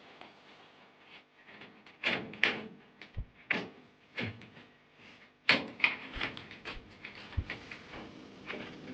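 Irregular knocks and clatters, about a dozen, from hard parts being handled or set in place during installation work. The loudest come about two seconds in and again about five and a half seconds in, with a couple of deeper thuds in between.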